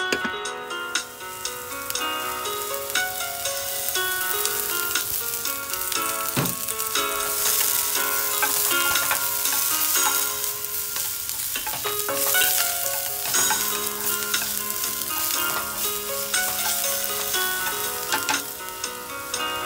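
Diced green bell pepper and tomato sizzling in a nonstick frying pan, with a spatula stirring and scraping them around the pan.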